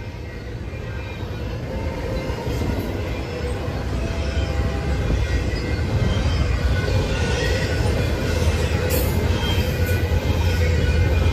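Approaching train, its low rumble building steadily louder.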